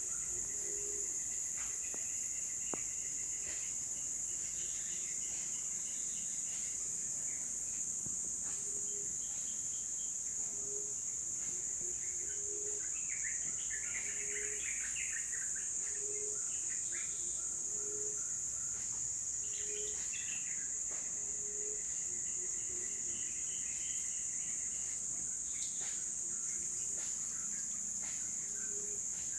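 Forest insect chorus, a steady high-pitched buzz, with scattered bird chirps and a low call repeated every one to two seconds.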